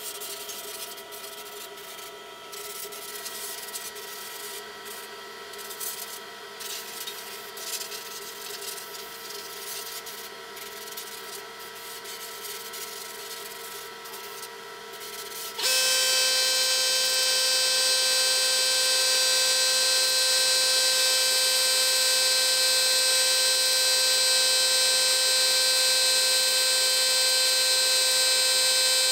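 A door jamb spray gun hissing in short, uneven bursts over a steady hum from the shop air compressor. About halfway through, a much louder steady whining hum cuts in abruptly and runs on: the air compressor starting up and running.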